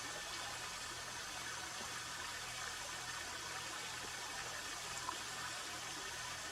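Faint steady hiss of outdoor background noise, with one small tick about five seconds in.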